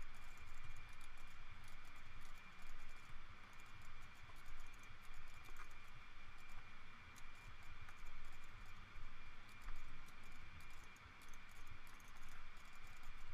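Computer keyboard and mouse clicking: scattered, irregular keypresses and clicks as shortcuts are entered while editing a 3D mesh, over a steady faint hiss.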